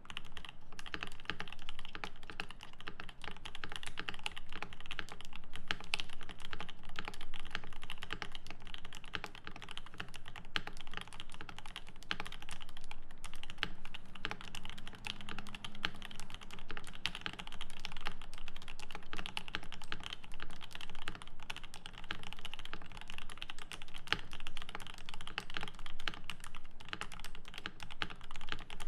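Continuous fast typing on a Rama M65-B mechanical keyboard with lubed Alpaca V2 linear switches in a brass plate and GMK keycaps: a steady stream of keystrokes with no pauses.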